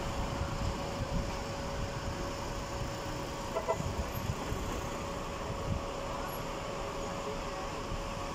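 Steady outdoor background noise with a low rumble and a faint steady hum, broken once, about three and a half seconds in, by a brief pitched call.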